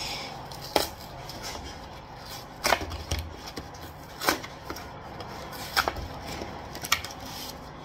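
Kraft cardboard takeaway box being pried open by hand, its folded flaps and tabs pulling free with about five sharp crackles and snaps, a second or so apart, over a steady low hum.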